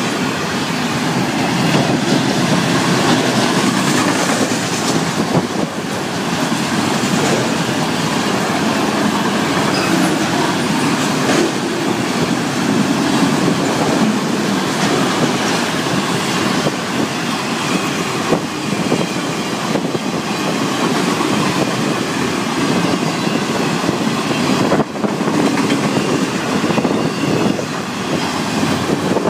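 Florida East Coast Railway freight cars rolling past, a loud steady rumble of wheels on rail with clicks as the wheels cross the rail joints.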